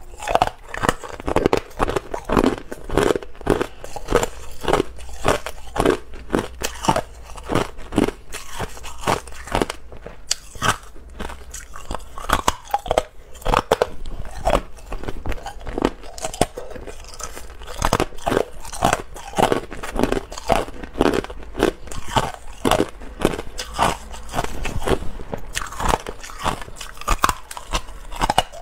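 A person biting and chewing clear hard ice, close to a clip-on microphone: a steady run of sharp crunches, two or three a second, as the ice is cracked between the teeth.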